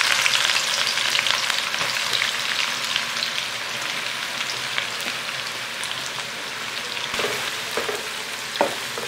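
Sliced onions frying in hot oil in a nonstick pan: a dense crackling sizzle, loudest as they go in and easing over the first few seconds, while a wooden spatula stirs through them.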